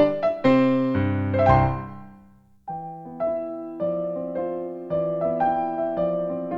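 Background piano music: a run of notes dies away about two seconds in, then a softer, slower passage of notes and chords begins.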